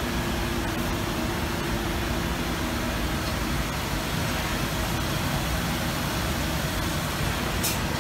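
Citizen Cincom M20 Swiss-type CNC lathe running, its tooling flooded with cutting oil: a steady machine hum with a spray hiss and a few faint low tones, and a short click near the end.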